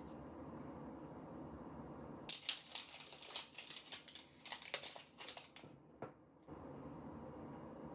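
Clear plastic wrapping being crinkled and peeled off a roll of craft tape: a run of sharp crackles starting a couple of seconds in and lasting about three seconds.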